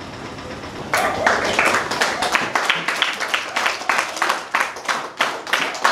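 A group of children clapping their hands in a tiled hall, the clapping starting about a second in as a run of sharp claps several a second.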